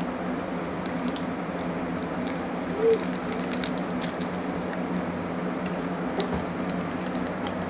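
Plastic candy wrapper crinkling in the hands as the packet is opened, with scattered small crackles, over a steady background hum. A brief short tone about three seconds in.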